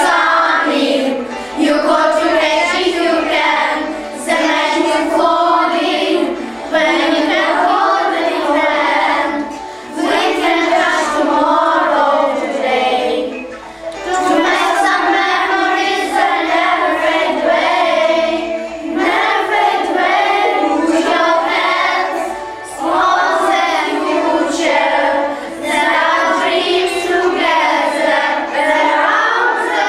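A group of schoolchildren singing a song together in unison, in phrases with short breaths between them.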